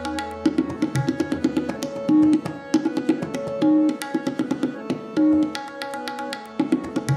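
Tabla solo: rapid, dense strokes on the dayan and bayan drums, with the bass drum's deep resonance swelling in and out. Under it a harmonium repeats a short melodic cycle (lehra), its phrase coming round about every one and a half seconds.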